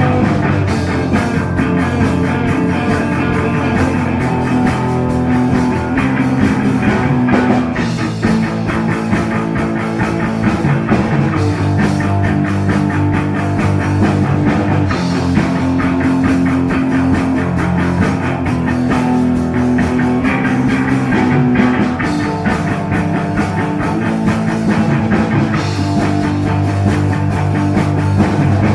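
A rock band playing an instrumental section with no vocals: electric guitars holding sustained chords over bass and a steady drum-kit beat.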